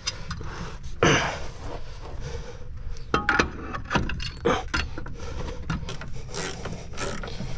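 Irregular metallic clinks, knocks and scrapes of drum-brake shoes and spring hardware being worked into place on a 1974 Mack R600 truck's wheel end, the loudest knock about a second in, over a low steady rumble.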